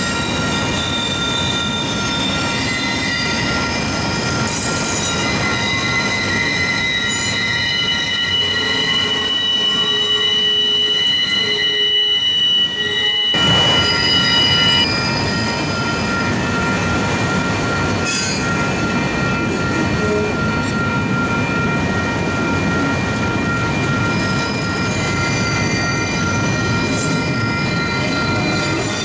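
Autorack freight cars of a passing freight train rolling by steadily, with the wheels squealing in several steady high tones over the rumble of the cars.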